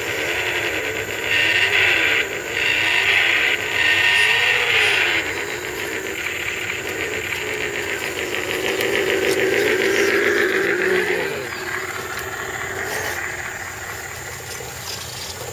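Electric drive motors and gearboxes of scale RC crawler trucks whining as they crawl over rocks and roots, the pitch wavering up and down with the throttle. The whine drops in pitch and fades about eleven seconds in.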